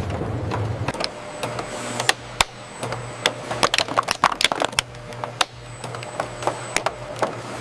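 Automated production-line machinery clicking and clattering in irregular sharp knocks over a steady low hum, with a faint high steady whine through most of it.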